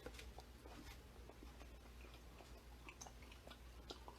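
Faint chewing of a mouthful of raw octopus sashimi, heard as scattered soft little clicks and smacks.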